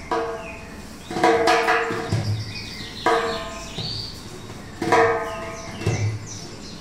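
Music of struck percussion: irregular beats about every second or two, each a low thump with a ringing pitched tone that dies away, with short high chirping sounds between the beats.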